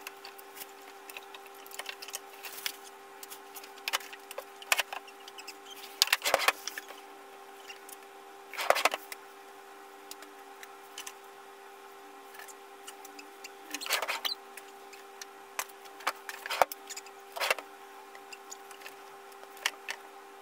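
A plastic bag crinkling and baby clothes rustling as they are handled, in short irregular bursts every second or two, over a steady faint hum.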